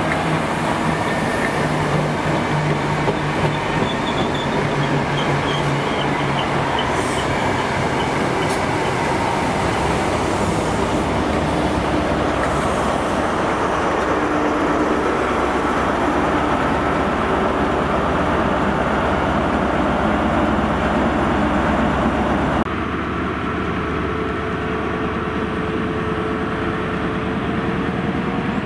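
High Speed Train with Class 43 diesel power cars moving along the platform, engines running loud over the rumble of coach wheels on the rails, with a faint wheel squeal a few seconds in. The sound drops suddenly about three-quarters of the way through as the train draws away.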